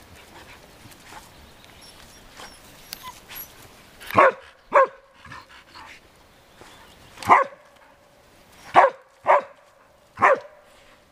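Samoyeds barking: six short single barks in the second half, the first two close together, then one, then a quick pair and a last bark.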